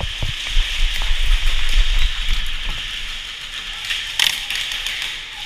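Quick footsteps on concrete and gear and rifle rattling as a player hurries while carrying an airsoft rifle, over a steady hiss and low buffeting on the body-worn camera's microphone. A brief clatter comes about four seconds in.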